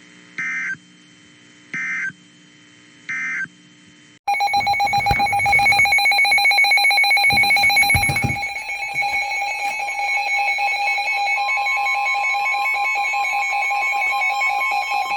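Emergency Alert System tones: three short bursts of data tones, the end-of-message code closing the previous warning. About four seconds in, a loud electronic alert sounds and holds, several steady pitches with a fast ringing flutter, and another steady tone joins about two-thirds of the way in, announcing the next warning.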